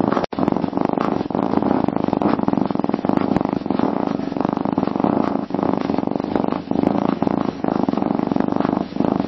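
Domestic cat purring steadily, a fast continuous rumbling pulse, with a split-second break just after the start.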